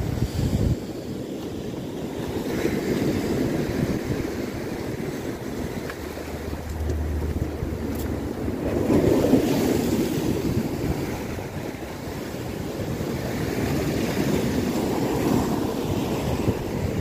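Sea waves breaking and washing over a rocky, pebbly shore, swelling three times about six seconds apart, with wind buffeting the microphone.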